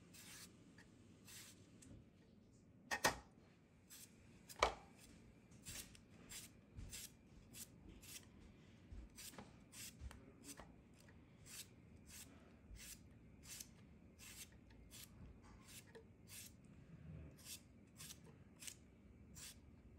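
Santoku knife slicing thin strips off a peeled cucumber held in the hand: a steady run of short, crisp cuts, about two a second. Two louder knocks stand out about three and four and a half seconds in.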